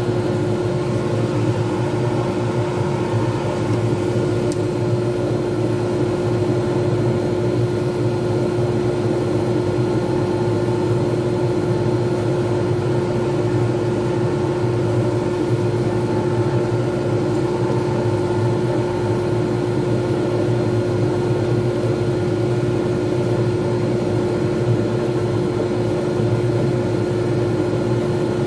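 Lathe running steadily with a constant hum while an abrasive pad is pressed against the spinning poured-resin blank to sand it.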